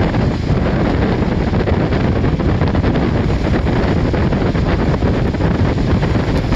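Wind buffeting the microphone in a steady, heavy rumble, with the wash of sea surf underneath.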